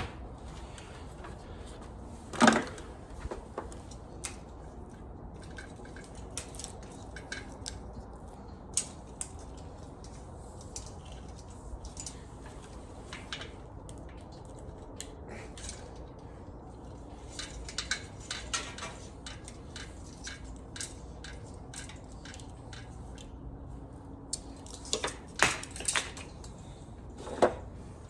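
Scattered metallic clinks and knocks of hardware being handled, with a sharper knock about two seconds in and small clusters of clicks in the middle and near the end.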